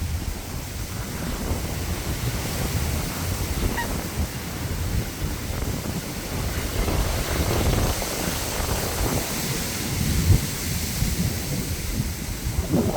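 Strong wind buffeting the microphone in an uneven, rumbling roar of gusts.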